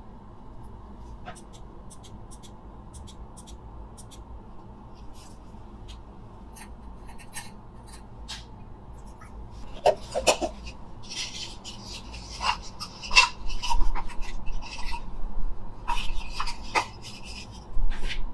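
Camping gear being handled and lifted out of a steel Stanley lunch box: faint scattered clicks and taps at first, then from about ten seconds in, louder knocks, clatter and rustling as items are taken out and set down on the table.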